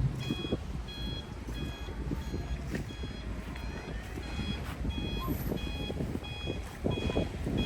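Vehicle reversing alarm beeping steadily, about a beep and a half a second, over a low rumbling background noise.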